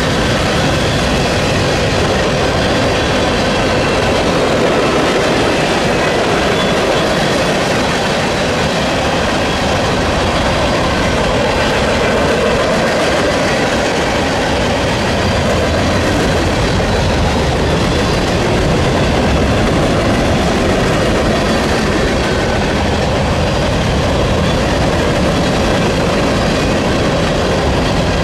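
Freight train cars, tank cars and covered hoppers, rolling past close by: a steady, continuous rumble and rattle of steel wheels on rail.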